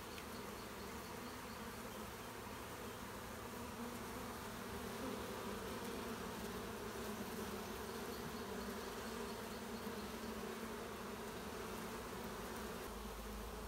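Many honeybees buzzing steadily, a colony pouring out of its nest in a car door as it absconds, driven out by a repellent spray.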